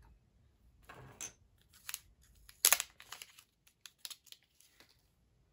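Plastic wrapping crinkling and crackling in short bursts as a stylus is unwrapped and handled, with a few small clicks. The loudest crackle comes about two and a half seconds in.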